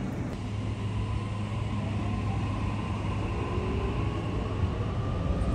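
Train running past at the station: a steady low rumble with a faint whine that slowly rises in pitch.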